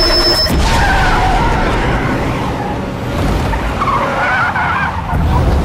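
Car tyres squealing as the car skids, in two long wavering squeals, about a second in and again around four seconds in, over a dense rumble of the car's engine and road noise.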